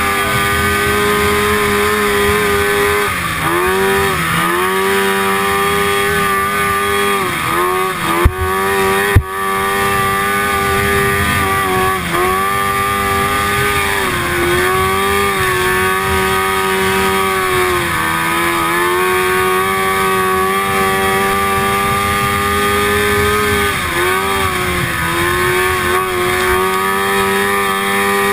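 1974 Rupp Nitro snowmobile's two-stroke engine running at high revs, heard from on board, its pitch dipping briefly and climbing back every few seconds as the throttle is eased and reopened. Two sharp knocks about a second apart, some eight seconds in.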